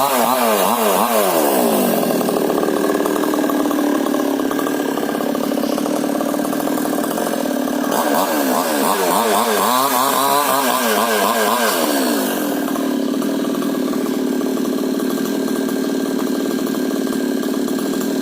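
Maestro 22-inch two-stroke chainsaw running, its pitch wavering and dropping as it bites into hard old coconut wood, once at the start and again from about eight to twelve seconds in. It runs steadier in between and after.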